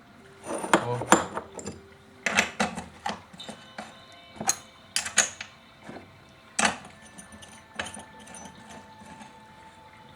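Small metal chainsaw parts clinking and knocking as they are handled and fitted during reassembly: a dozen or so irregular sharp clicks and knocks, the loudest in the first seven seconds.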